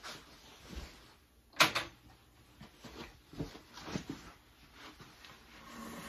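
A person moving about in a small room: footsteps, rustling and small knocks, with one sharp clack about a second and a half in, the loudest sound.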